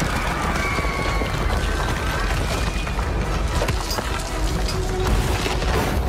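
Film score music over a continuous deep rumble of a concrete dam breaking up.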